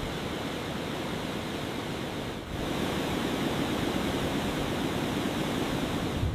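Steady rushing noise of wind and sea, with a brief dip about two and a half seconds in, after which it runs a little louder.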